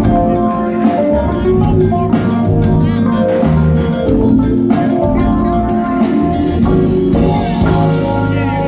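A band playing: guitar notes over a drum kit keeping a steady beat.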